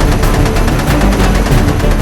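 Loud, tense background music with a fast, steady beat.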